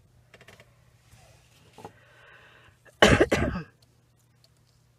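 A person gives one short, loud cough about three seconds in, with a few faint light taps before it over a low steady hum.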